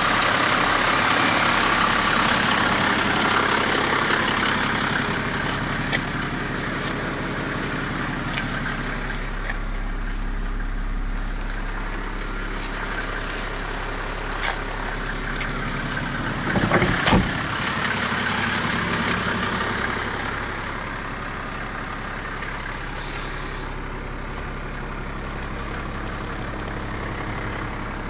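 Puch 300 GD's five-cylinder diesel engine idling steadily, heard first by the open bonnet and more faintly from inside the cab. A short cluster of knocks comes about two-thirds of the way through.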